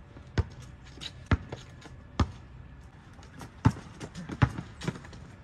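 Basketball dribbled on an asphalt court: three sharp bounces about a second apart, then a few quicker, uneven ones in the second half as the play speeds up, with lighter sneaker steps and scuffs between.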